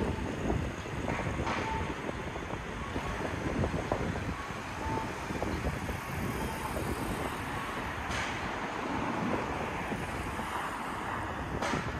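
City street ambience: steady road traffic with vehicles passing now and then, and some wind on the microphone.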